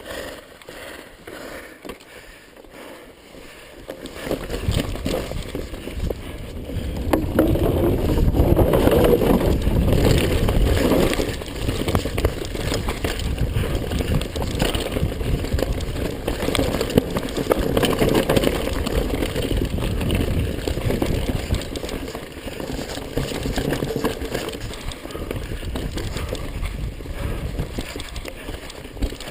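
Mountain bike riding down a dirt trail: tyres rumbling and the bike rattling over rough ground, with wind buffeting the microphone. It picks up about four seconds in.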